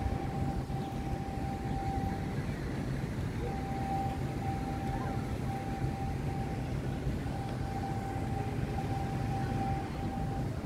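Steady outdoor city ambience: a low, even rumble of traffic and general activity. A faint thin tone comes and goes several times over it.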